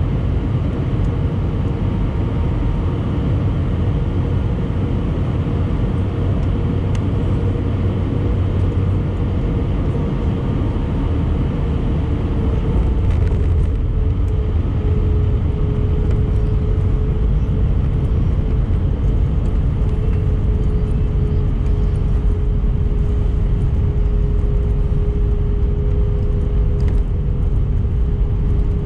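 Airbus A319 airliner landing, heard inside the cabin: steady engine and airflow noise with a constant engine tone, growing a little louder about halfway through as the jet comes down onto the runway and rolls out with its spoilers raised.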